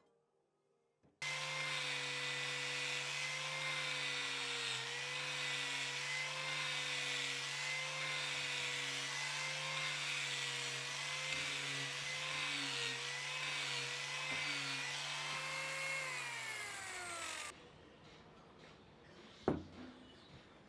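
Angle grinder with a felt buffing wheel running while polishing a steel blade: a steady motor whine over rubbing noise, its pitch wavering slightly. It starts abruptly, then winds down with a falling whine and stops; a single sharp knock comes soon after.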